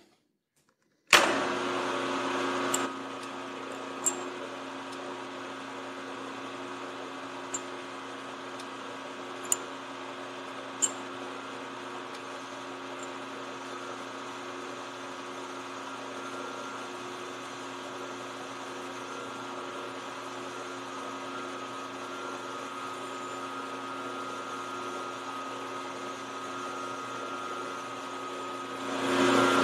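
Milling machine spindle starting about a second in and running steadily with a constant motor whine, with a few sharp ticks. Near the end it grows louder as the chamfering tool, a ground-down boring bar, begins cutting the edge of the bore in the steel banjo.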